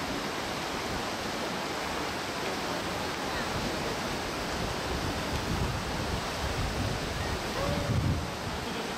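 Shallow mountain stream rushing over rocks, a steady hiss of flowing water, with a brief louder low rumble near the end.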